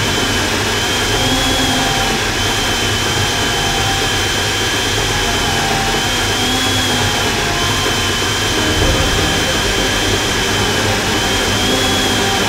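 Countertop blender running steadily on its smoothie setting, pureeing chunks of apple and other fruit into a smoothie; a loud motor whine that wavers slightly in pitch.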